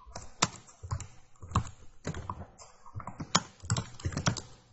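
Typing on a computer keyboard: a run of irregular keystroke clicks as code is entered.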